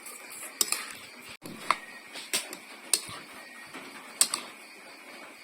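Kitchen utensils clicking and knocking in sharp, irregular taps, roughly one every second, over a faint steady high hum.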